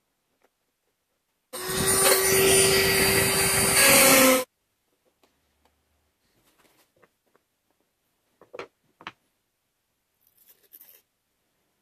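A power tool's motor runs loud for about three seconds, starting suddenly and cutting off abruptly. Afterwards come a few light taps and clicks of small parts being handled on a wooden bench.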